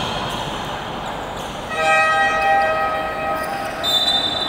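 Basketball game horn sounding for nearly two seconds, a chord of several steady tones that signals a stoppage in play. About four seconds in, a referee's whistle blows in a long, high blast.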